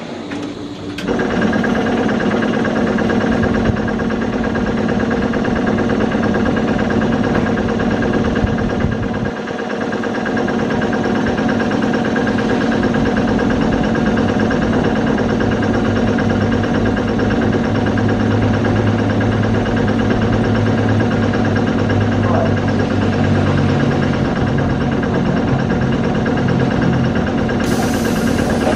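The auxiliary machinery of a standing ED4M electric multiple unit, most likely its air compressor, starts about a second in and runs steadily with a loud, even mechanical hum made of several tones. An extra low tone joins for a while in the second half.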